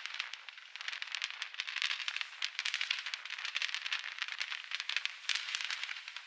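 Fireworks crackling: a dense, rapid stream of sharp crackles and pops from crackling-star effects, with no deep booms.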